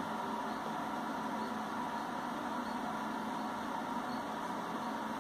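Steady hiss with a faint constant hum and no speech: the background noise of the narration recording.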